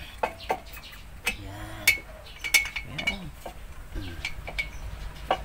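Scattered sharp metallic clinks and taps from hands and tools working on a MAN diesel engine, with faint voices in the background.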